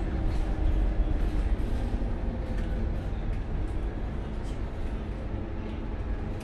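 Cabin noise inside a Scania K230UB city bus: a steady low rumble from its rear-mounted five-cylinder diesel engine and running gear, with faint ticks and a few steady hums over it, easing off slightly about halfway through.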